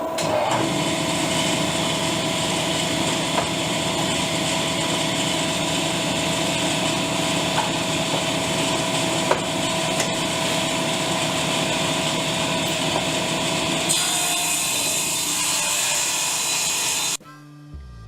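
Table saw running and cutting a wooden board, with a homemade dust collector running alongside: a steady whine over noise. The sound changes about fourteen seconds in and cuts off suddenly about a second before the end, when guitar music begins.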